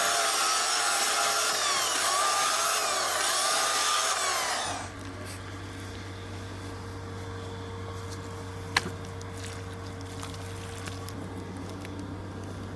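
Chainsaw cutting, its pitch rising and falling for about five seconds, then running more quietly and steadily, with a sharp click partway through.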